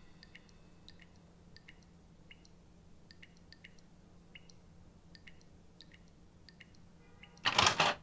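A faucet dripping into a stainless-steel sink: faint, irregular, small high plinks, often in quick pairs, over a faint low hum. Near the end comes a short, loud burst of noise lasting about half a second.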